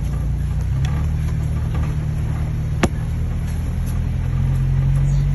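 A car being driven: a steady low engine and road drone whose pitch shifts a little about a second in and again near the end. A single sharp click about three seconds in.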